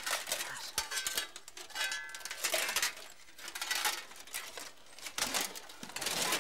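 Metal plates of a suit of armour clinking and rattling in a series of short bursts as the wearer moves about and kneels down, with a brief metallic ring about two seconds in.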